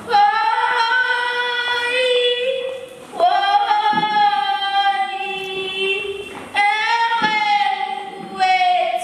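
A young girl singing a slow prayer song solo into a handheld microphone, in long held notes that break into a new phrase about every two to three seconds.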